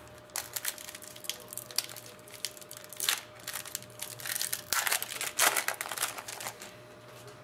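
A shiny foil hockey card pack being torn open by hand: crinkling and tearing of the wrapper in irregular clusters, loudest about three seconds in and again from about five to six and a half seconds, as the cards are pulled out.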